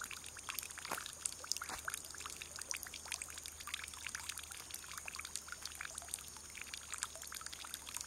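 Water falling into a full metal basin and spilling over into a puddle: a steady splashing trickle made of many small, quick splashes.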